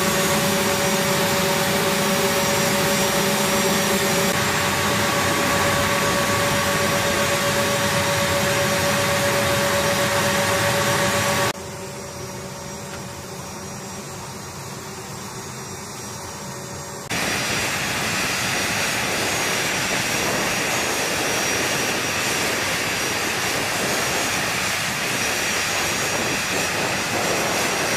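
Steady flight-line machinery noise, a running engine or turbine with a constant hum in it. It drops abruptly to a quieter rumble about 11 seconds in and comes back loud and steady about 6 seconds later.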